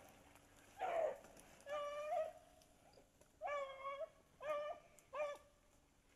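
Beagles baying, faint and at a distance: about five drawn-out bawls, each roughly half a second long, the sound of hounds giving tongue as they run a rabbit's scent trail.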